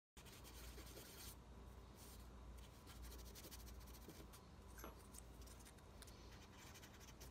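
Faint rubbing and a few small clicks of fingers handling tiny metal lock wafers and springs on a paper towel, over a low steady room hum.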